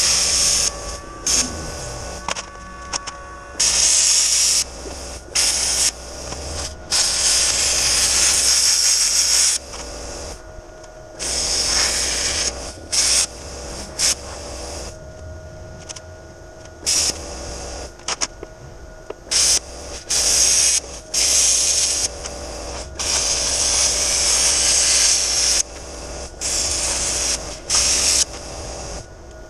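Arc welding on the steel front bumper: a crackling hiss in repeated stop-start bursts, some a second or less and the longest several seconds, with a steady low hum between them.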